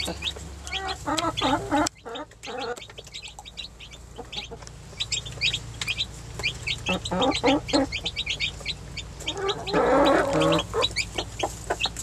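Baby chicks peeping constantly in quick, high cheeps, with lower clucking calls breaking in a few times, loudest about ten seconds in.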